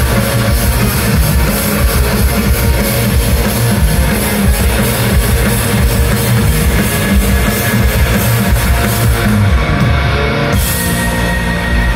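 Live rock band playing loud, with electric guitar, electric bass and drum kit. A held high note comes in near the end.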